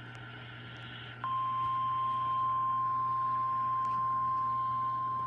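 NOAA Weather Radio's 1050 Hz warning alarm tone: a single steady beep that starts about a second in and holds, announcing an Emergency Alert System broadcast. Faint radio hiss comes before it.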